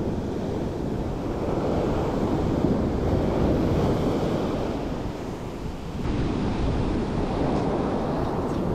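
Sea surf washing in with wind buffeting the microphone. The wash swells and eases, dips about five to six seconds in, then builds again.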